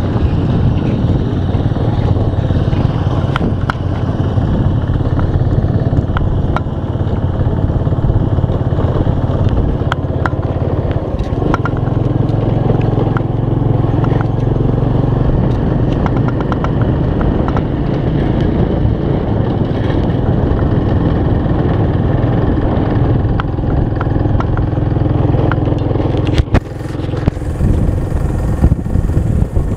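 Motorcycle engine running steadily while riding at road speed, with road and rushing-air noise. A few sharp clicks and knocks of the camera being handled come near the end.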